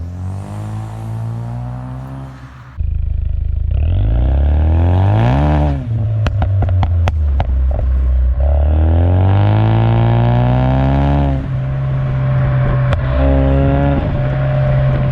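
The Mustang EcoBoost's turbocharged 2.3-litre four-cylinder, through a COBB exhaust, revs up and drops back twice. After the first climb a quick string of pops and crackles from the exhaust follows the fall in revs, from the Stratified tune set up for pops and crackles.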